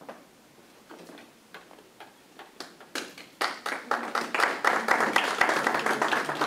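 Students clapping: a few scattered claps at first, building about three seconds in into steady applause.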